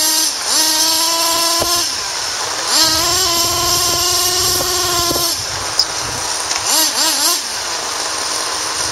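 RC off-road truck's motor revving hard while its wheels spin in wet mud, held at a high whine twice for a second or two, about half a second in and again about three seconds in, with short rising and falling revs between. A steady hiss runs underneath.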